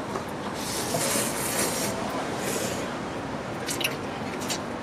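Instant ramen noodles slurped off chopsticks: a long wet sucking hiss that starts about half a second in and lasts over two seconds, then a few short sharp clicks near the end.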